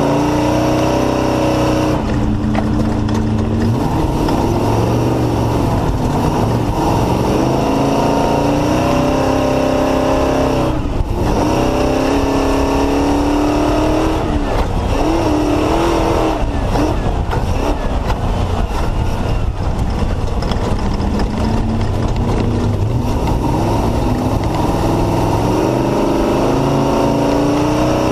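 Off-road race car's Mullenix-built engine running hard and loud, its pitch repeatedly climbing and then dropping as it shifts and lifts, over a constant rough rumble and rattle of the car at speed.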